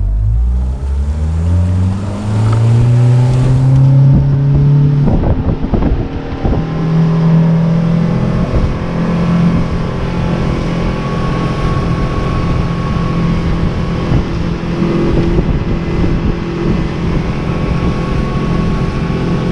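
Boat motor speeding up, its pitch rising over the first few seconds. It breaks off briefly with a few knocks about five seconds in, then runs steadily at cruising speed.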